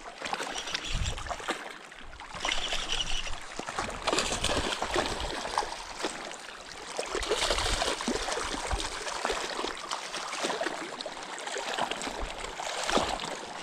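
Water trickling and lapping among shoreline rocks, with a steady crackle of rustling and handling close to the microphone.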